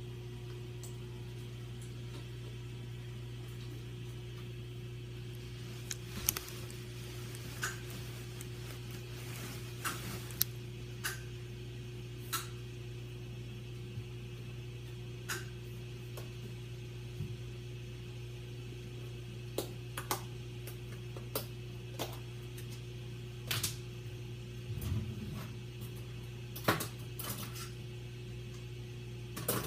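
Scattered sharp clicks and knocks of kitchen items being handled, over a steady low hum.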